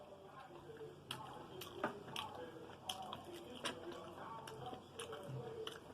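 Close-up mouth sounds of someone eating chicken wings: wet chewing, lip-smacking and a dozen or so sharp clicks scattered irregularly.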